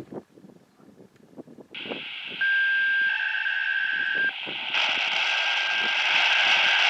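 Radio receiver static that switches on about two seconds in, carrying a steady single-pitch beep for about two seconds, then louder static. These are transmitted tones on the siren system's radio channel.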